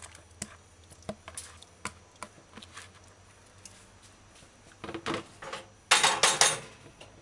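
Metal saucepan and plate handled on a gas stove: a few light taps and clicks, then a louder clatter and scrape about five and six seconds in as the pot is shifted on the burner grate.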